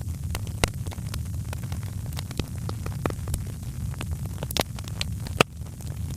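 Wood fire crackling in a fireplace: a steady low rumble of burning with frequent sharp pops and snaps, three louder cracks standing out, one early and two toward the end.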